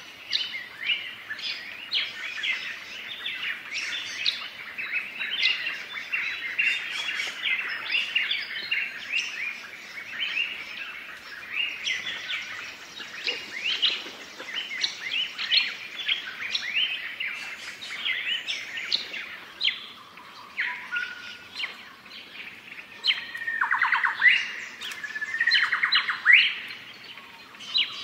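Many birds chirping and calling over one another in a steady dawn-chorus-like clamour. Near the end come two louder calls made of rapid pulses.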